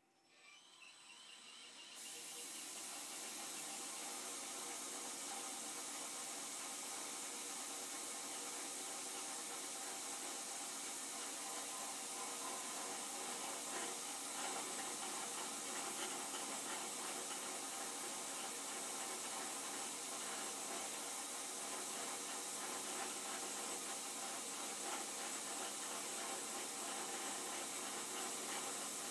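Milling machine running, an end mill cutting a slot wider in a cold-rolled steel blank: a steady hiss that builds up over the first two seconds and then holds even.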